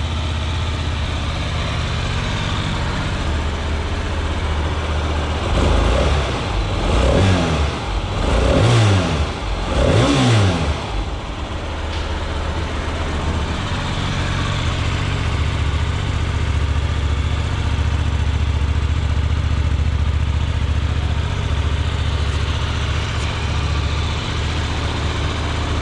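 2018 Hyosung GT250R's 250 cc V-twin running on its stock exhaust: a steady idle, blipped four times in quick succession partway through, each rev climbing and dropping back, then settling to idle again.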